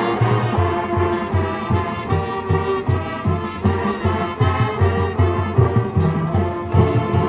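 Marching band playing: brass chords held over a steady pulse of low notes, about two or three a second.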